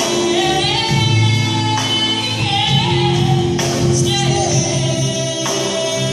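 Live band playing a song: a woman singing lead over electric guitars, bass, keyboard and drums, with drum or cymbal hits about two and three and a half seconds in.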